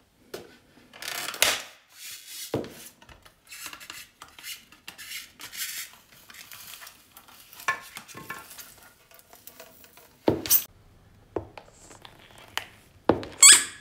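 A high heel presses into and breaks a polystyrene foam block, with a run of squeaky, scratchy creaks and cracks. Near the end come a few sharp knocks, the loudest at the very end, as the heel comes down on a spiky rubber ball.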